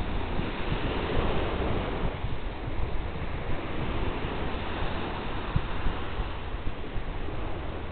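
Small sea waves breaking and washing up a sandy beach, with a surge of surf about a second in, over a steady rumble of wind buffeting the microphone.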